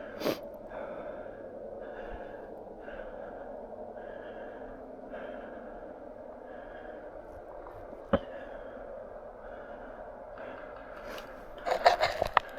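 A player breathing hard while moving through snow, soft swells repeating about once a second. One sharp click comes about eight seconds in, and a quick cluster of louder knocks comes near the end.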